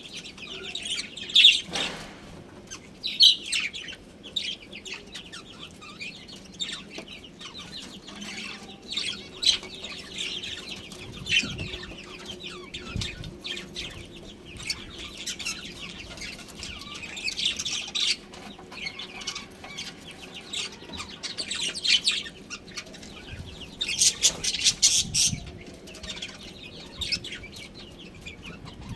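A group of budgerigars chirping and chattering: a dense, continuous run of short high chirps, busiest in a few louder bursts.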